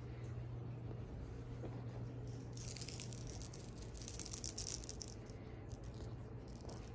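A small pink woven ball cat toy rattling and jingling as it is shaken and pushed about, starting about two and a half seconds in and going on in shorter spells until near the end. A steady low hum runs underneath.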